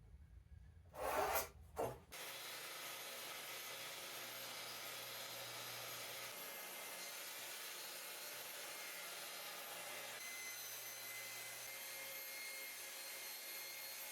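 Two short scraping rubs on wood about a second in, then an abrupt change to a steady, even hiss of wood being worked that runs on without a break.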